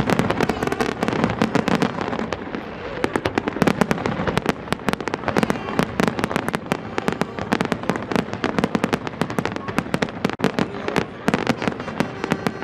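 Fireworks going off in a dense, rapid barrage of sharp bangs and crackles, many per second, with a brief lull just after ten seconds in.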